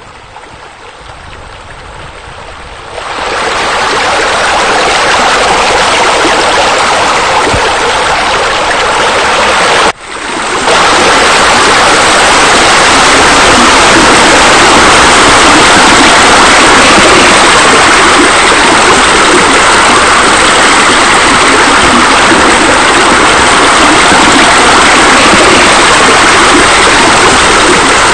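Loud, steady rush of splashing water from pool fountains and water features. It fades in, jumps louder about three seconds in, cuts out for a moment about ten seconds in, then runs on evenly.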